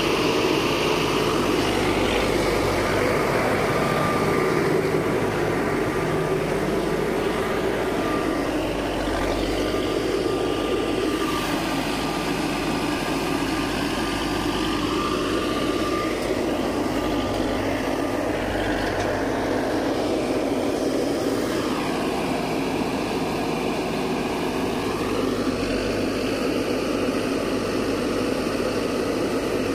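Escorts Digmax II backhoe loader's diesel engine running under hydraulic load as the loader arm and bucket work soil. The engine note dips and rises again twice, with a faint thin whine in the first half.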